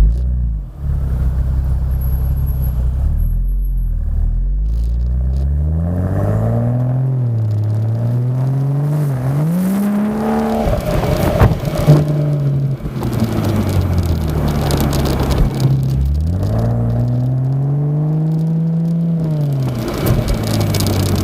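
BMW M135i F21's turbocharged straight-six engine and exhaust revving: the pitch climbs, dips and climbs again, then drops back. A sharp crack about halfway through, and later the revs rise and fall once more.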